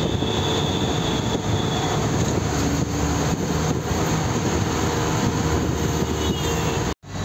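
Truck engine and road noise heard from inside the cab while driving: a steady drone, with a faint high whine for the first two seconds. It drops out for an instant near the end.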